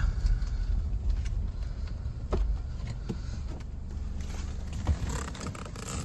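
Low, steady engine and road rumble heard from inside a car's cabin as it drives along a rough farm track, with a few sharp knocks and rattles. The rumble drops away near the end.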